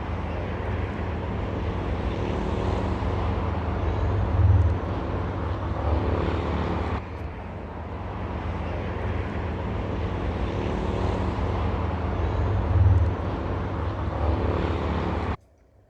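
Ocean surf breaking on a beach: a steady roar with a deep low rumble that swells louder twice, then cuts off suddenly near the end.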